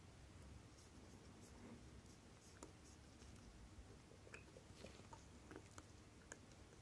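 Near silence broken by several faint, irregular small clicks and scrapes of steel tweezers and a watchmaker's screwdriver on a vintage Citizen 8100A chronograph movement, mostly in the second half.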